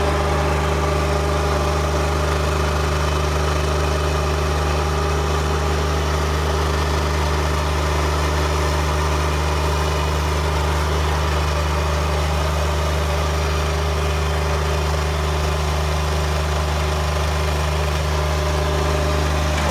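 Bobcat skid-steer loader's engine running steadily at a low, even hum while the loader tips its bucket to dump asphalt.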